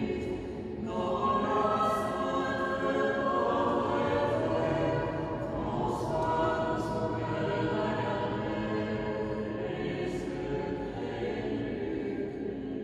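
Mixed choir singing a liturgical chant in sustained, held notes.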